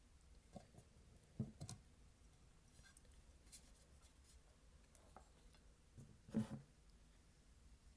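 Soft tapping and handling of candles: scattered faint ticks, a pair of light knocks about a second and a half in, and a louder, slightly longer knock about six and a half seconds in.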